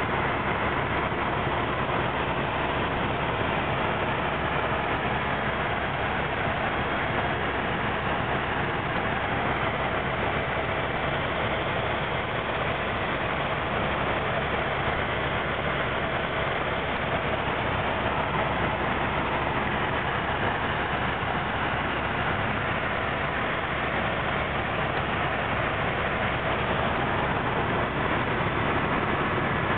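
Helicopter in level flight, heard from inside the passenger cabin: a steady, unchanging drone of engine and rotor noise.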